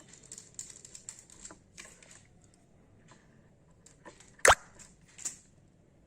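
Small clicks and scrapes of a wire being fitted into switch terminals on an electrical board, with one sharp click about four and a half seconds in and a smaller one just after.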